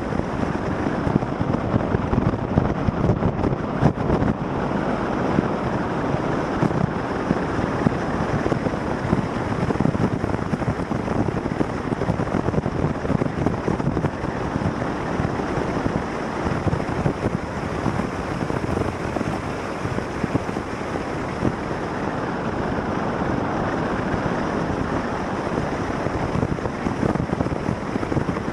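Steady wind rush on the microphone mixed with the road and engine noise of a vehicle driving at speed.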